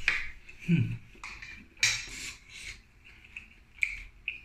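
Eating a seafood boil by hand: shellfish shells cracking and being pulled apart, a string of sharp, irregular crackles and clicks.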